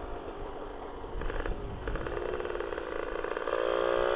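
Two-stroke engine of a modified Yamaha V80 fitted with a Ninja R cylinder block and head, running under way. Its note rises about two seconds in as the throttle opens, then holds higher and louder near the end.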